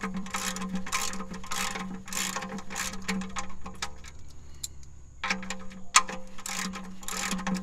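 Socket ratchet clicking in quick back-and-forth strokes, about two to three clicks a second, as an oil-pan drain plug is run back in and tightened. The clicking pauses for about a second a little past the middle, then resumes.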